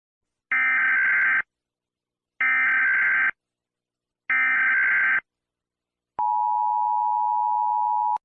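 Emergency Alert System SAME header: three short bursts of digital data warble about two seconds apart, followed about six seconds in by a steady two-second alert tone.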